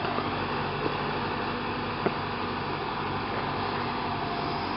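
Tractor engine running steadily as it pulls a tree planter, with a few light clicks, the clearest about two seconds in.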